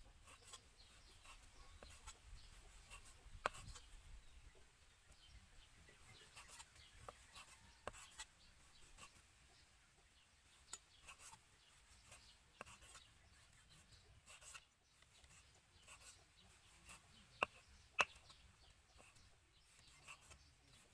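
Kitchen knife cutting raw beef on a wooden chopping board: faint slicing and scraping with irregular sharp taps of the blade on the wood. Two taps near the end are the loudest.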